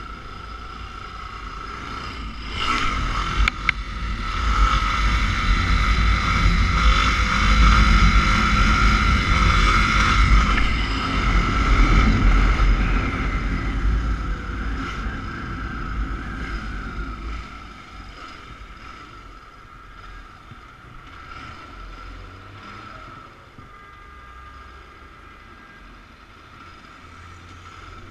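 Motorcycle engine pulling away and running at speed, with heavy wind rush on the microphone. After about two-thirds of the way it eases off to quieter running as the bike slows.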